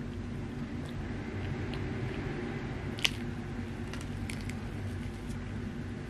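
Close-miked eating sounds of a Napoleon mini cake: a metal spoon cutting through soft sponge and cream, with soft moist chewing. There are small clicks throughout and one sharp click about halfway through, over a steady low hum.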